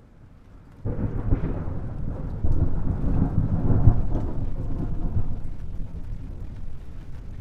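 A roll of thunder over falling rain: the thunder breaks in suddenly about a second in, swells, and slowly dies away while the rain keeps falling.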